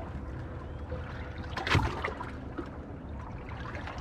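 Water lapping against the hull of a small fishing boat drifting on calm sea, with one brief sharp knock about halfway through.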